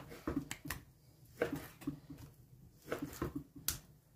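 A kitchen knife slicing through lean raw beef and knocking against a wooden cutting board. The knocks are short and irregular, about a dozen of them.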